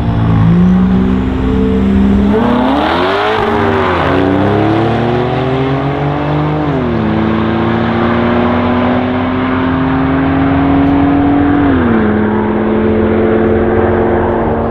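A Camaro SS 6.2 V8 and a twin-turbo Porsche 997 Turbo flat-six accelerating hard together from a standing drag-race start. The engines hold steady revs, then launch about two seconds in. Their pitch climbs and drops back at three upshifts as they pull away.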